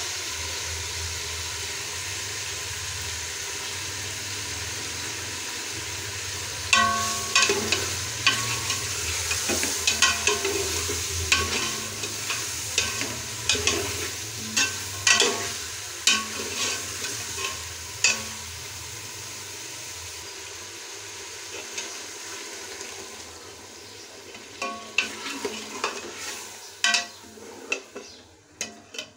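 Chicken pieces sizzling in ghee in a large metal cooking pot while a steel ladle stirs them. From about seven seconds in, the ladle scrapes and knocks against the pot many times. The sizzle fades toward the end.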